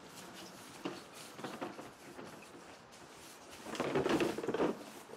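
Bicycle being brought to a stop and handled: scattered clicks and knocks, with about a second of louder rustling and scraping a little before the end.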